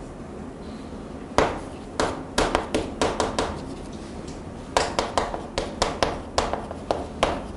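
Chalk tapping on a chalkboard while writing. Quiet for the first second and a half, then a quick run of sharp taps, a short pause midway, and another run of taps.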